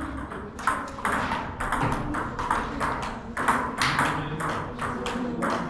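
Table tennis balls clicking off bats and the table during play: a run of sharp, quick knocks, several a second.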